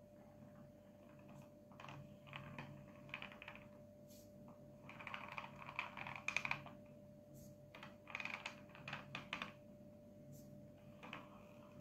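Wooden serving board being turned by hand on a table: short runs of faint clicking and scraping, four times, over a steady faint hum.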